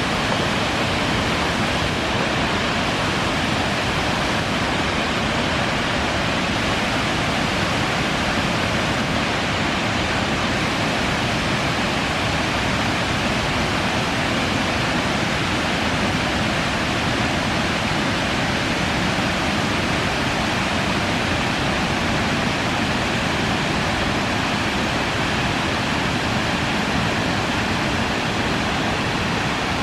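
Waterfall rushing: a steady, loud roar of falling water with no change in level.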